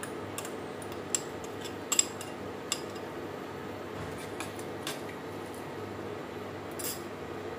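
Spoon clinking now and then against a stainless-steel saucepan as rice is stirred in water, the sharpest clink about two seconds in, over the steady hum of an induction cooktop.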